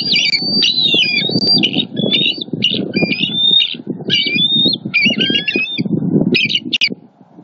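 Bald eagles giving a rapid run of high-pitched chirping and squealing calls, alarm calls at an intruding eagle flying over the nest. The calls stop near the end, over a low rumbling noise that runs underneath.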